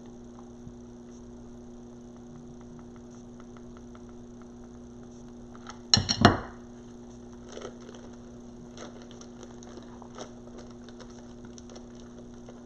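Small craft items being handled on a work table: scattered light clicks and taps, with a brief cluster of louder knocks about six seconds in, over a steady low hum.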